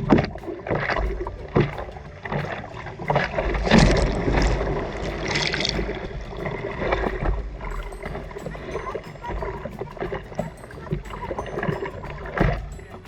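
Sea water splashing and sloshing in irregular bursts around a surfer in the surf, with a longer, louder rush of water about four seconds in.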